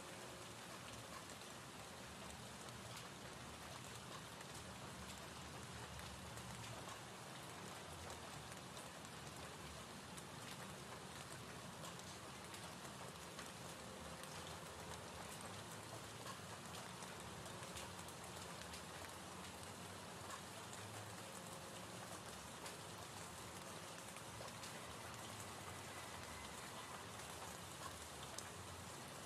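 Gentle rain ambience: a faint, steady hiss of rain with scattered drop ticks.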